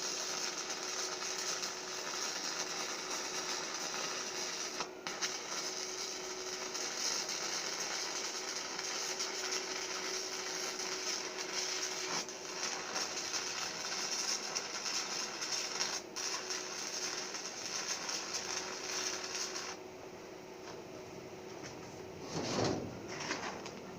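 Stick-welding arc burning a 6011 electrode in the flat position: a steady crackling hiss with brief breaks about five and sixteen seconds in. The arc stops about twenty seconds in, and a short louder noise follows near the end.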